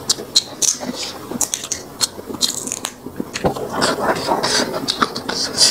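Close-miked chewing and eating sounds: a run of sharp wet mouth clicks and small crunches, busier about four seconds in.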